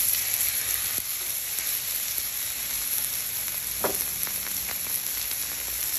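Beef chuck steak searing on a hot flat-top griddle, sizzling steadily, with a couple of faint ticks.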